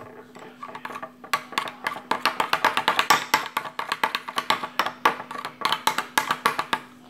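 Metal spoon stirring body-wash-and-hand-soap slime in a glass bowl, clinking rapidly against the glass at about five or six knocks a second from about a second in, over a steady low hum.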